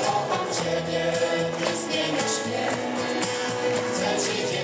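Live Polish worship song, sung by a leader and congregation through loudspeakers, with instrumental accompaniment and percussion.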